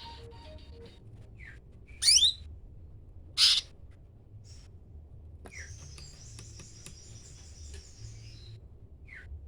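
Cucak ranting songbird calling: two loud, quick sweeping call notes about two and three and a half seconds in, then a high, fast twittering trill lasting about three seconds, with a few short slurred notes between. A faint low hum runs underneath.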